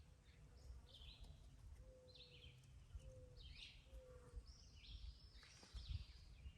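Birds singing faintly outdoors, a series of short chirps every second or so, over a low rumble.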